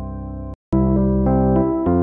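Keyboard music: a held chord fades, breaks off into a brief silence about half a second in, and then a new keyboard tune starts with notes changing every few tenths of a second.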